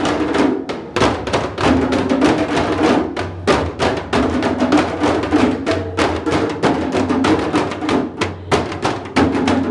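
Group of djembe hand drums played together in a fast, steady rhythm, a dense stream of hand strikes on the goatskin-style heads with the drums' ringing tone underneath.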